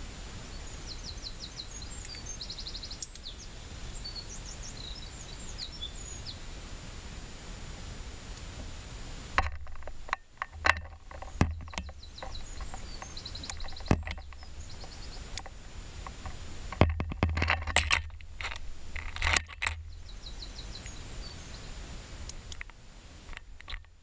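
Sharp taps and knocks on the camera as a juvenile European robin investigates it up close, starting about nine seconds in, coming in scattered clusters and stopping about twenty seconds in. Faint high chirps and trills of songbirds carry on in the background.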